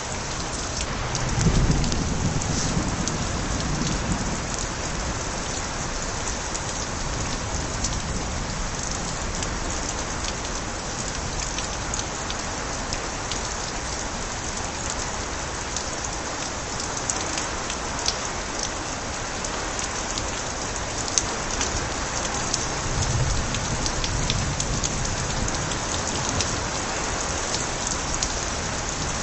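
Steady rain with water spilling and splashing from overflowing gutters, with scattered drips. Low rumbles of light thunder come once near the start and again about three-quarters of the way through.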